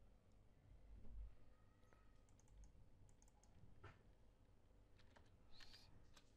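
Faint computer keyboard typing and mouse clicks: a few isolated clicks, then a short run of keystrokes near the end.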